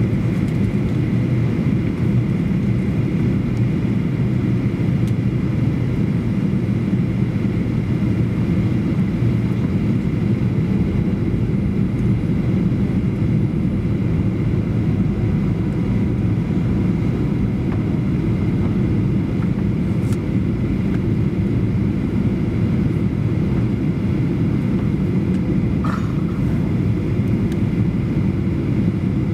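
Cabin noise inside a Boeing 737-800 on its descent: a steady low drone of the CFM56 engines and the airflow, with a faint steady high whine above it.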